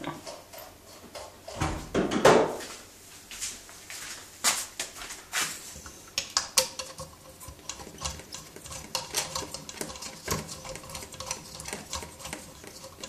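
Clicks, knocks and clatter of test gear being handled on a wooden workbench: an in-line RF wattmeter lifted and coax cables moved about, with a louder rustling thump about two seconds in.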